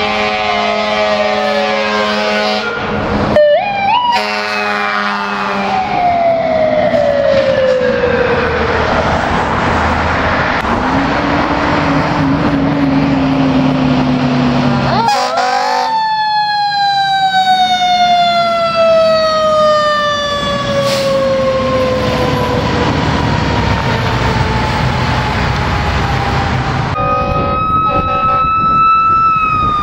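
Fire apparatus sirens with engine and road noise: a mechanical Q siren winding down in long, slowly falling wails, with quick rising siren sweeps about three to four seconds in. The sound changes abruptly three times as one passing unit gives way to the next.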